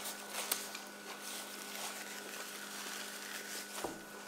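Faint chewing of a mouthful of burger over a steady electrical hum, with a few small soft clicks and a brief short sound near the end.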